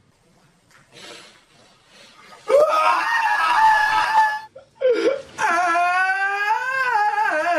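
A man crying out and wailing in loud, exaggerated anguish. After a quiet start and a breath, a loud cry breaks out about two and a half seconds in. It stops briefly, then turns into one long wail that wavers up and down in pitch.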